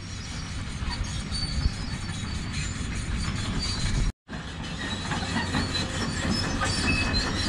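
Construction-site noise: a steady low rumble with scattered light metallic clinks and squeaks as steel reinforcing bars are handled and tied. The sound drops out for a moment about four seconds in.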